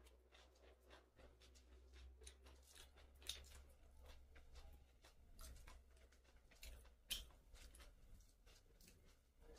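Faint eating sounds: chewing and small wet mouth clicks as rice and chicken are eaten by hand, with a sharper click about three seconds in and another about seven seconds in.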